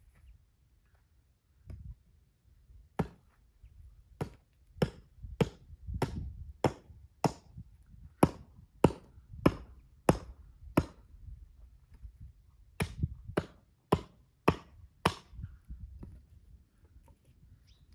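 Chopping dry brushwood with a hatchet: about seventeen sharp, woody strikes, roughly one every half-second or so, in two runs with a short pause in between.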